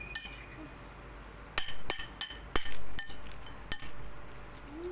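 Utensil clinking against a bowl as the kerabu salad is tossed and mixed: a run of about six sharp, ringing clinks from about a second and a half in until near four seconds.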